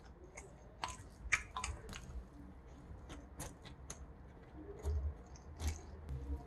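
Close-up wet chewing and smacking of rice mixed with boneless spicy marinated raw crab, with irregular sharp clicks of the mouth. There are a few low thuds about five seconds in.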